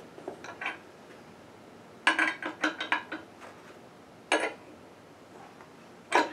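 Metal wrenches clinking against each other and against the metal booster and sonotrode of an ultrasonic transducer as they are fitted on. There are a few light clinks at first, a quick cluster of clinks about two to three seconds in, and single clinks just past four seconds and near the end.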